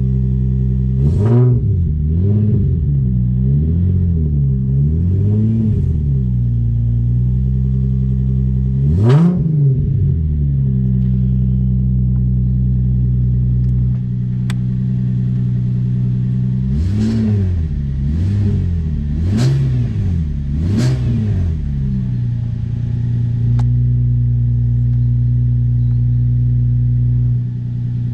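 Nissan 350Z V6 with a decatted ISR blast-pipe exhaust, its Apexi exhaust valve open, idling and being blipped: a run of quick revs in the first six seconds, a sharper rev about nine seconds in, and four revs in a row around two-thirds through, dropping back to a steady deep idle between.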